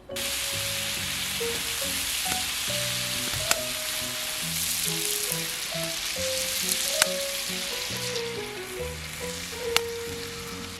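Chicken thighs sizzling as they cook over a campfire: a steady hiss that starts suddenly, with a few sharp pops of spitting fat. Background music plays underneath.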